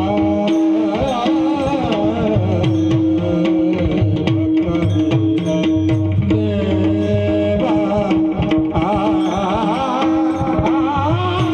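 Devotional bhajan music: a singer's wavering, ornamented melody over a steady held drone note, accompanied throughout by frequent strokes on a mridang.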